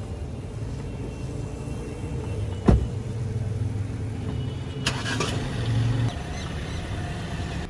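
Driver's door of a 2016 Audi A4 shutting with a single sharp thump about three seconds in, over a low steady rumble; a second, lighter knock follows about two seconds later.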